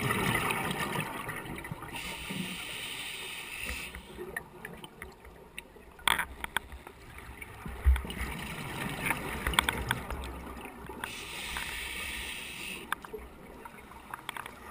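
Scuba diver's exhaled bubbles rushing out of the regulator twice, each burst about two seconds long and about nine seconds apart, between breaths. Scattered clicks and knocks from the camera rattling in its housing, with one low thump near the middle.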